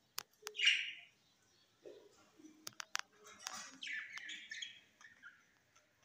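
Budgerigars chirping and chattering: one loud chirp just under a second in, then warbling chatter from about four seconds, with a few sharp clicks scattered between.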